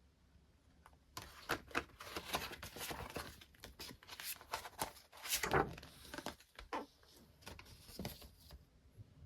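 Plastic packaging rustling and crinkling as it is handled and opened, in irregular crackly bursts from about a second in until near the end.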